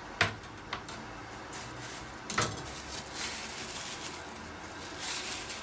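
A few short knocks and clicks of kitchen things being handled: one about a quarter second in, a lighter one just after, and a heavier one about two and a half seconds in. A soft hiss builds near the end.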